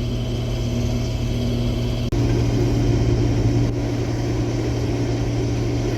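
Case IH combine's engine running with a steady low drone. About two seconds in it breaks off for an instant and resumes slightly louder at a different pitch.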